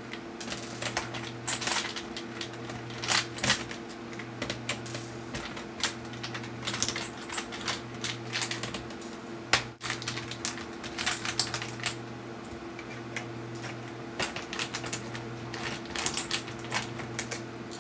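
Irregular small metal clicks and taps of a screwdriver working out the tiny screws around a Dell Inspiron 6400 laptop's screen bezel, with a steady low hum underneath.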